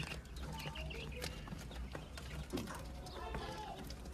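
Japanese quail in a pen: faint soft calls and scattered clicks over a steady low hum.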